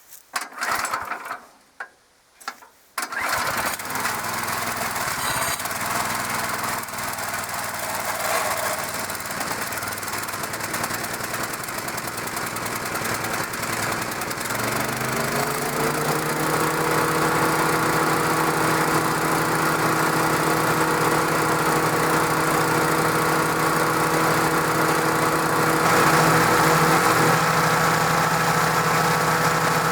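The Briggs & Stratton engine of a DR 16.5 self-feeding wood chipper is pull-started with the choke on, its first start after sitting about a month. It gives two short bursts, catches about three seconds in and keeps running. About halfway through the running note climbs briefly and then holds steady.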